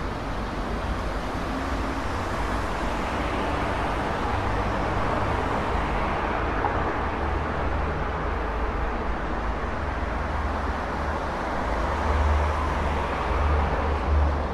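Road traffic: a continuous rush of passing vehicles with a low rumble, swelling as vehicles go by about halfway through and again near the end.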